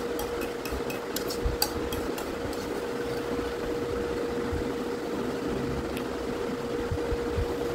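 Several light clicks of a utensil against a plastic bowl in the first two seconds, with one more click about six seconds in, over a steady hum and room noise.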